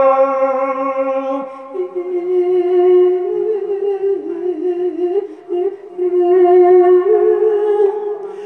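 A Thai Buddhist monk's voice singing a verse in a slow, drawn-out melody. He holds long notes, steps up to a higher note about two seconds in, and wavers through a run of turns before settling on another long held note.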